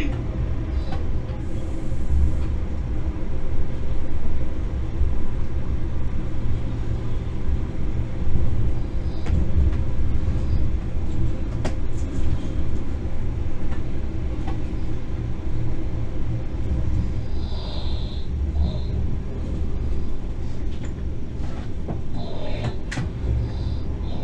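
Electric locomotive running along the track, heard from inside the driver's cab: a steady low rumble of wheels on rail with a steady hum over it, and a few faint clicks.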